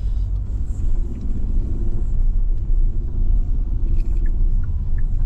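Car driving at low speed, a steady low rumble of engine and road noise heard from inside the cabin.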